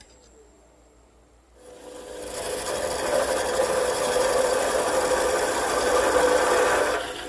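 Parting tool cutting a sizing groove into an ash baseball-bat blank spinning on a wood lathe: a steady scraping cut. It starts about one and a half seconds in and stops just before the end.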